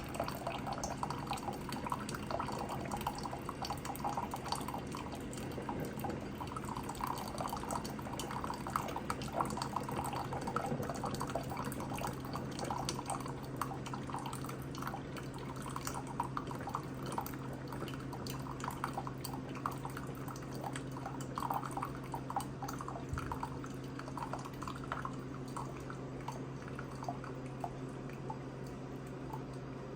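Coffee maker brewing: irregular dripping and gurgling of hot water over a steady low hum. The dripping thins out near the end.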